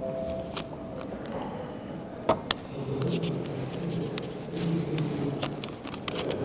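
Paper raffle ticket being unfolded by hand: a scatter of sharp crinkles and clicks, with a louder snap about two seconds in and quicker crinkling near the end.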